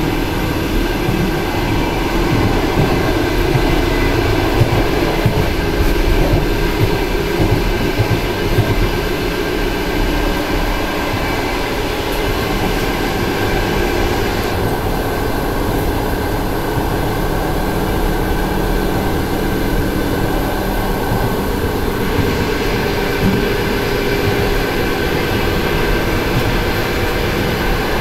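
Cabin noise inside a car of an ET2M electric multiple unit running at speed: a steady rumble of wheels on the rails with a constant hum. The hiss above it softens for several seconds about halfway through.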